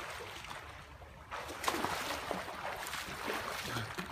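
A person swimming in a pool: water splashes as he surfaces, then splashes and sloshes with his strokes, getting louder about a second and a half in.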